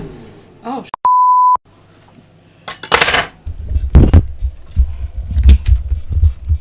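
A censor bleep, a steady high beep about half a second long, about a second in. Then a sharp clack and loud knocking and rumbling handling noise as the camera is picked up and moved by hand.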